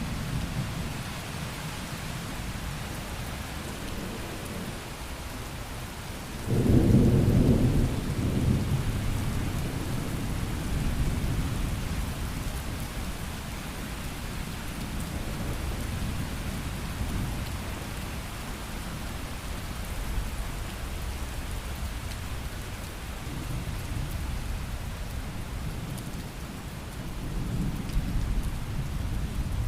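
Steady rain with rolling thunder. A loud low peal of thunder starts suddenly about six seconds in and rumbles away over several seconds, and another, softer swell of rumbling comes near the end.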